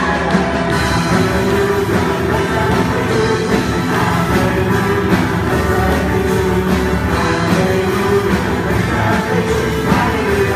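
Live band with singers playing an upbeat rock-style song, loud and continuous.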